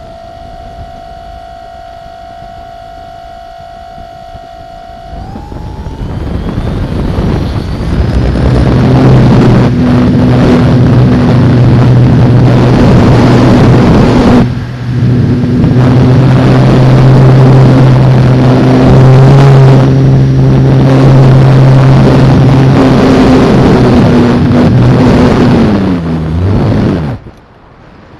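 Radio-controlled model sailplane's nose motor and propeller heard from on board: a steady whine at low speed, rising about five seconds in to a loud full-power run with a low hum through the takeoff and climb. Near the end the motor winds down and cuts off.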